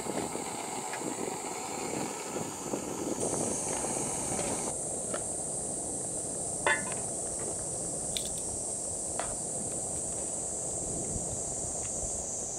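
Canister gas stove burning steadily under an aluminium Trangia mess tin of simmering pasta, with a steady high hiss over it. Sharp metal clink of the aluminium lid about seven seconds in, then a few light taps.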